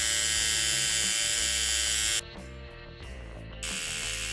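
A cheap Chinese Stigma rotary tattoo machine runs freely in the hand with a steady electric buzz while being tested at different voltages. It stops about two seconds in and starts again, quieter, about a second and a half later.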